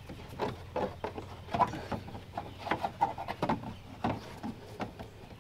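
Rubbery headlight-bulb access cap being fitted back into the plastic fender liner and twisted to lock, with irregular light clicks and rubbing.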